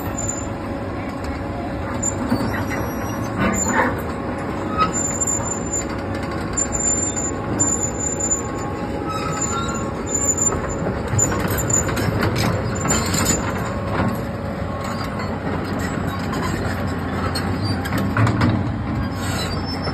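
Kobelco hydraulic excavator's diesel engine running as the machine crawls down a steep bank onto a gravel road, its steel tracks squealing and clanking. Sharper knocks come a few seconds in, around the middle and near the end.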